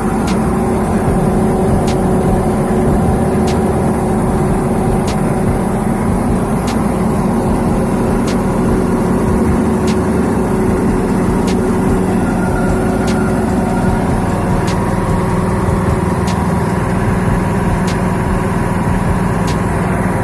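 Hyundai HDE 200 6.5 hp petrol engine running steadily, driving the grass chopper, with a faint regular tick about every second and a half.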